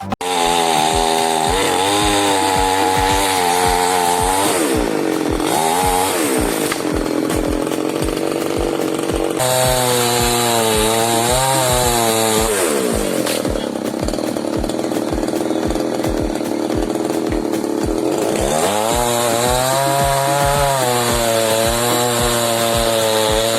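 Chainsaw running and revving up and down several times, with background music that has a steady beat underneath.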